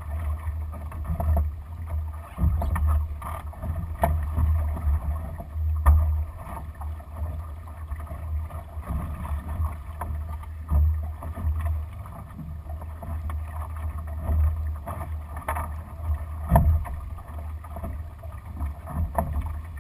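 Wind buffeting the microphone as a low, gusting rumble, over water washing and slapping along the hull of a Lightning sailboat under way, with a few sharp knocks or splashes.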